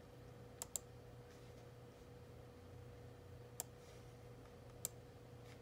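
Computer mouse clicks: a quick double click just under a second in, then single clicks at about three and a half and about five seconds, over a faint steady hum.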